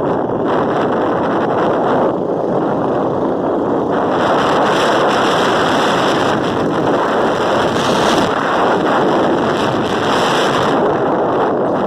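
Heavy wind rushing and buffeting over the phone's microphone during a ride, a loud, steady rush that swells a little in the middle, with the moving vehicle's noise under it.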